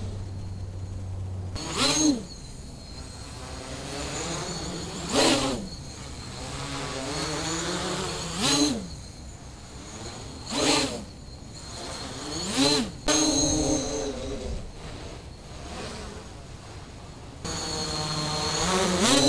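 Quadcopter with four Multistar 2213 980 kV brushless motors spinning 9x4.7-inch nylon props, buzzing in flight. The whine rises and falls with throttle, and five times the craft sweeps close past the microphone, getting briefly loud with a quick rise and fall in pitch.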